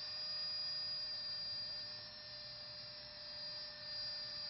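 Mono-Phan 8 thrust-vectoring nano drone's electric motor running in flight: a steady hum with a high whine over it, whose pitch shifts slightly about a second in.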